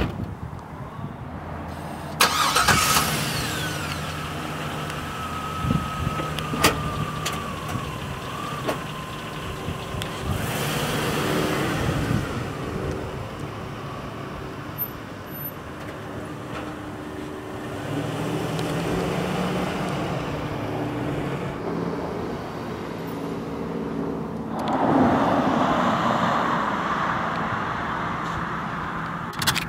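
Chevrolet Tahoe SUV engine starting about two seconds in, then running as the SUV drives off, its note shifting in pitch. It grows louder again near the end as the SUV passes by.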